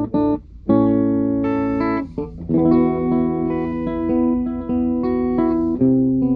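Electric guitar on a clean tone through a Mesa Boogie tube amp, chords struck and left ringing, with short breaks about half a second and two seconds in.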